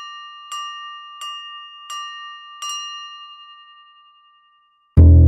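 A bell-like chime strikes one repeated note about every 0.7 s, four times, and its ringing fades out after the last strike: an intro logo sting. Near the end, loud music with a deep plucked bass starts suddenly.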